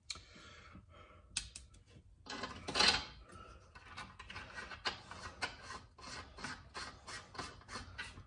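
A nut being spun hand-tight onto a -10 AN bulkhead fitting in a metal valve cover: metal rubbing and scraping. There is a louder scrape about three seconds in, then a run of short scrapes about three a second.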